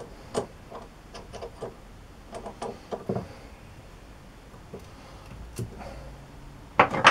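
Scattered light clicks and knocks from tools and parts being handled at a metal lathe, with a louder clatter near the end; no drill or motor is running.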